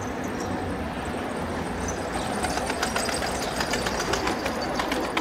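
Pigeon wings flapping in quick clicks from about two seconds in, over a steady low rumble.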